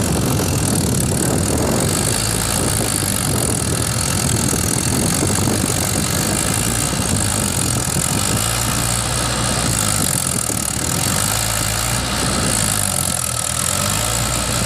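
Tractor-type diesel engine running steadily at close range, its pitch wavering slightly in the second half.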